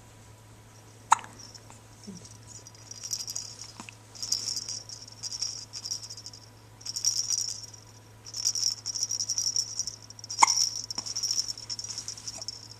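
A pet hiccuping: two sharp hiccups, one about a second in and one near the end. Between them come bursts of high-pitched scratchy rustling.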